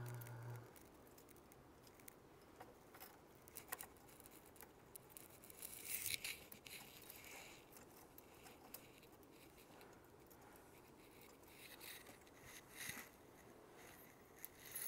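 Faint clicks and short scratchy rustles of small metal and plastic extruder parts being handled and fitted together by hand, during reassembly of a MakerBot Replicator 2 extruder; the scraping is loudest about six seconds in and again near the end.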